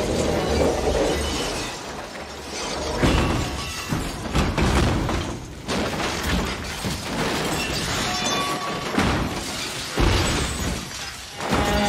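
A tractor-trailer truck rolling over and smashing apart on the road: a series of heavy crashes and impacts as the cab and trailer tumble and break up.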